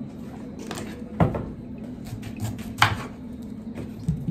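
Kitchen knife cutting broccoli on a wooden cutting board: a few sharp knocks of the blade on the board, two of them louder than the rest.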